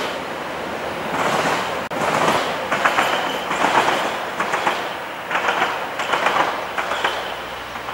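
Train wheels rolling over the rails, a steady rush broken by clusters of clicks as the wheels cross rail joints, roughly every half second to a second.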